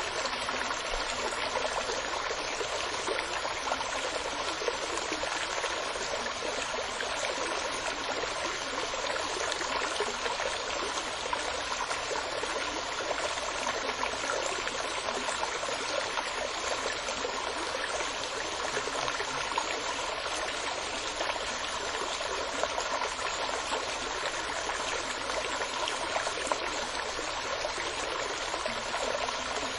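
Running water from a stream, a steady babbling trickle.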